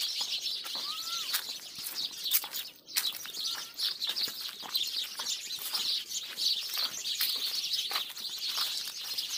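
Many small birds chirping at once in a clump of bamboo and trees: a dense, unbroken, high-pitched chatter of short chirps, with one clearer rising-and-falling call about a second in.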